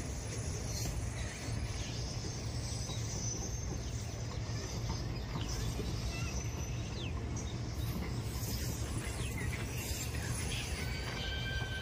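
Train of loaded flat wagons rolling past with a steady low rumble, and birds chirping above it now and then.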